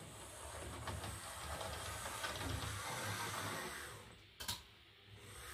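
HO scale model diesel locomotive running slowly on track: its small electric motor whirs and its wheels rattle over the rails. A single sharp click comes about four and a half seconds in, after the running sound fades.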